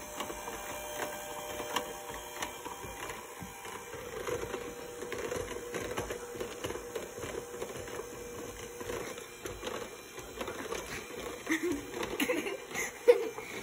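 Electric hand mixer running steadily, its twin beaters whipping a thin liquid mix in a plastic tub, with a steady motor hum and small clicks. A few louder knocks come near the end.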